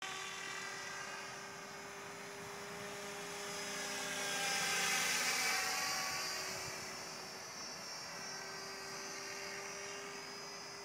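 Electric radio-controlled scale model helicopter flying past overhead: a steady whine of motor and rotors that grows louder to a peak about five seconds in, then fades as it moves away.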